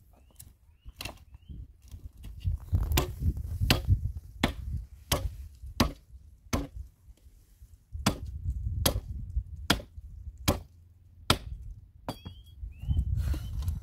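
Wood being chopped: a steady run of sharp blows into wood, roughly one every three-quarters of a second, with a short pause about two-thirds of the way through.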